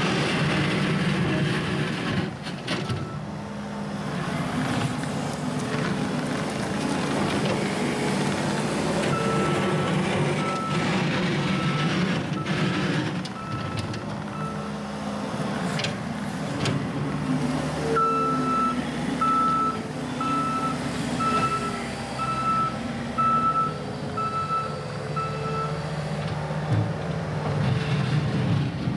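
New Holland C232 compact track loader's diesel engine running, with its reversing alarm beeping about once a second in two runs while the machine backs up, one about a third of the way in and another past the middle.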